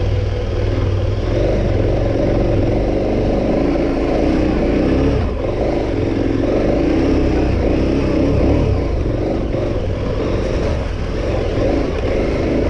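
KTM 1290 Super Adventure R's big V-twin engine running hard and revving under load while the bike works through mud. It is loud and continuous, rising and falling, with a brief dip about five seconds in.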